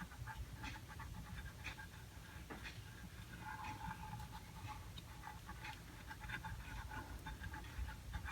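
Faint, irregular hand-scrubbing strokes while cleaning the logo on a small socket set case.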